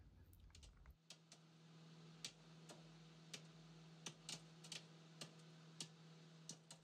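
Near silence: faint room tone with a steady low hum and a scattering of faint, irregular clicks.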